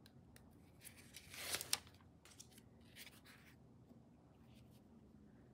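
Paper backing being peeled off a fusible-backed fabric appliqué piece and the fabric handled and laid down: faint paper rustling and crinkling in a few short bursts, the loudest about one and a half seconds in, stopping about three and a half seconds in.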